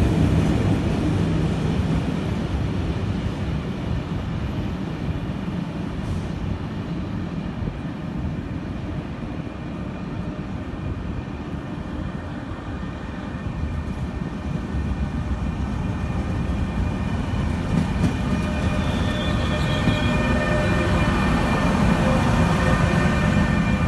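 Train passing on the line: a continuous rumble of wheels on the rails that eases off mid-way and then grows louder again, with a thin steady whine rising in over the second half.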